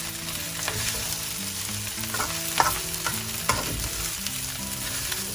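Fried rice sizzling in a wok over a high flame as it is tossed and stirred, with a scrape against the wok every second or so.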